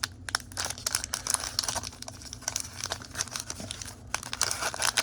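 Foil wrapper of a Pokémon booster pack crinkling and crackling as it is pulled and torn at, a stubborn pack that is hard to get open.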